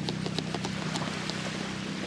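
Low steady hum of a boat engine idling offshore, with scattered light clicks in the first half.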